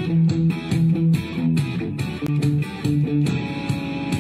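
Background music: a guitar-led track with a steady drum beat.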